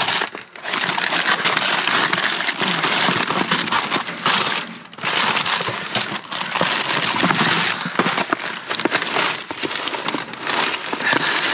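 Plastic bags and packaging crinkling and rustling as discarded food is rummaged through and handled, a dense crackling that eases off briefly twice.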